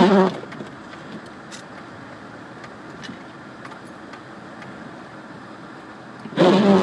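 Steady road and engine noise inside the cabin of a 1998 Subaru Legacy Outback with a flat-four engine, driving through snow, with a few faint clicks. A short, loud pitched sound comes right at the start and another near the end.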